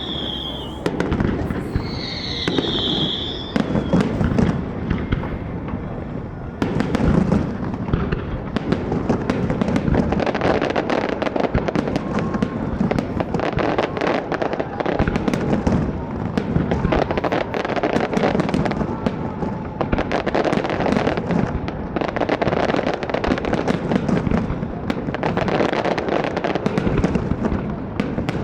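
Aerial fireworks going off in a dense, continuous barrage of many rapid bangs and crackles. A high whistle sounds twice in the first few seconds.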